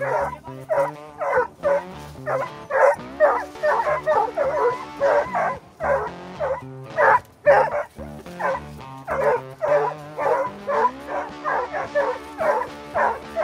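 A pack of hunting hounds barking in quick, repeated bursts, baying at a javelina cornered in a rock cave.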